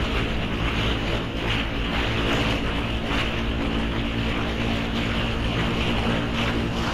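Bajaj Pulsar NS200's single-cylinder engine running at a steady cruising speed, with wind rushing over the microphone.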